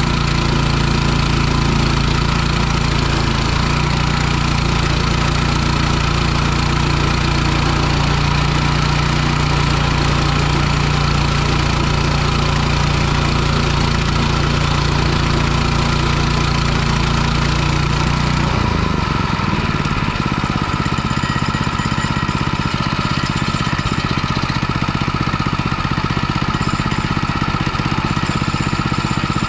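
Woodland Mills HM122 bandsaw mill's 7-horsepower Kohler engine running steadily while the band blade saws through a hickory log. A little over halfway through, the engine speed falls and it settles to a lower, steady idle as the cut finishes.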